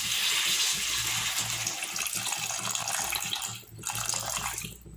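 A stream of water poured into a kadai of frying masala, paneer and potatoes for the gravy, running steadily with a short break about three and a half seconds in and stopping just before the end.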